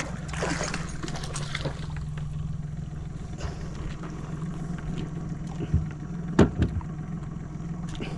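Steady low hum of a boat's motor, with a few sharp knocks about six seconds in.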